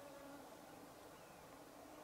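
Faint, steady whining hum of a swarm of mosquitoes flying close by.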